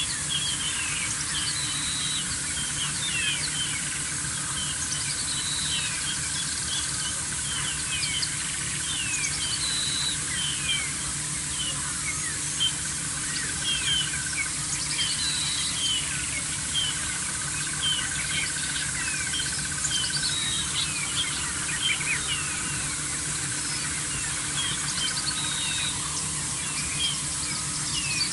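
A busy chorus of small wild birds chirping, with many quick descending notes and a few longer held whistles, over a low steady hum.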